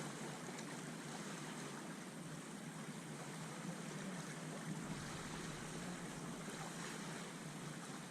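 Steady wind and water noise at the sea's edge, with no distinct events.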